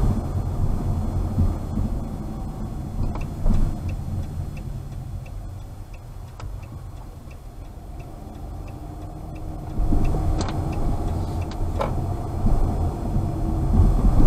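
Car interior driving noise: a low road and engine rumble that eases as the car slows, with a turn-signal indicator ticking about twice a second for several seconds. About ten seconds in, the rumble grows louder as the car speeds up, with a couple of knocks.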